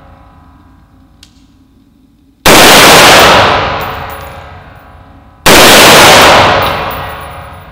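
AR-15 rifle firing 5.56 mm 55-grain rounds on its standard buffer: two single shots about three seconds apart, the first about two and a half seconds in. Each is a sharp crack with a long echo fading over a couple of seconds in the concrete indoor range.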